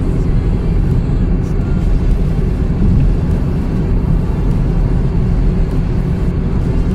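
Steady low rumble of wind and road noise from a moving vehicle.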